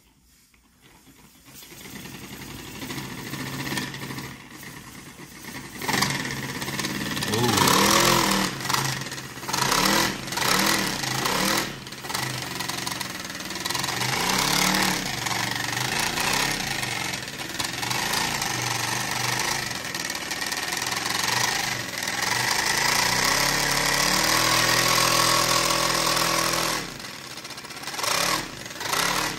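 Paper V-twin compressed-air engine running on air from ten balloons: a rapid mechanical clatter that builds up from about a second in. Its speed rises and falls several times, holds steady for a few seconds past the middle, then falters and comes in short bursts near the end.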